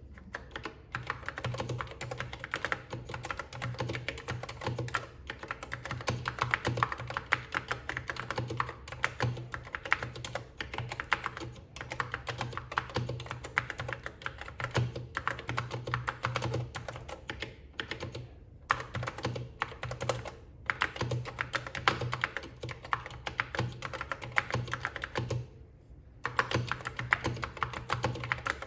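Continuous fast typing on a Key Tronic foam-and-foil keyboard: a dense run of key clicks with two brief pauses about two-thirds of the way through and a longer one near the end.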